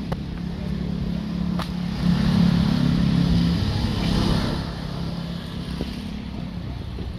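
A motor vehicle's engine passing close by on the street, growing louder about two seconds in and fading after about four seconds.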